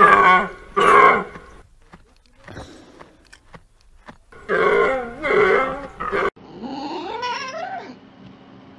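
Fallow deer bucks calling: two series of loud, deep calls, one at the start and another about four and a half seconds in. Near the end a red fox gives several higher whining calls that rise in pitch.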